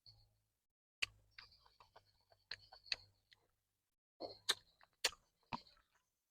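Close-up eating sounds: a string of sharp clicks and wet smacks from chewing, some louder than others, over a faint low hum.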